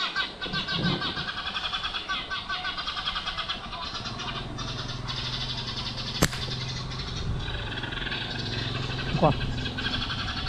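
Motorbike engine idling, with birds chirping rapidly over it for the first few seconds. About six seconds in comes a single sharp snap, a slingshot shot at a bird in the tree.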